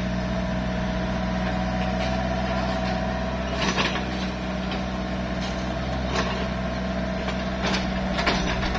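Doosan mini excavator's diesel engine running steadily under load with a steady whine, and a few short knocks as the bucket digs into the soil.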